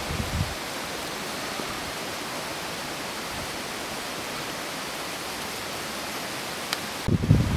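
Steady rushing noise of wind in the trees, with low rumbling bumps on the microphone in the first half-second and again near the end.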